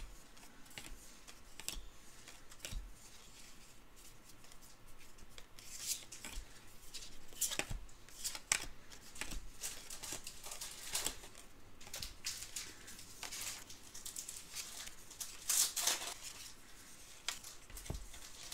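Trading cards being handled and flipped through, an irregular run of short papery scrapes and flicks, sharpest about two-thirds of the way through.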